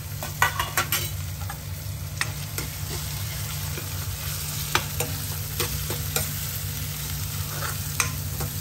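Chopped onion frying in hot oil and ginger-garlic paste in a kadhai, sizzling, while a spatula stirs it, tapping and scraping against the pan every half-second to second. A steady low hum runs underneath.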